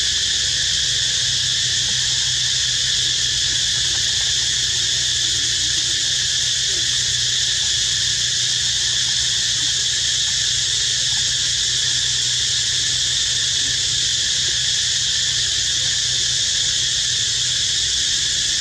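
Dense insect chorus, a steady high-pitched drone that holds unchanged throughout, with a faint low hum beneath.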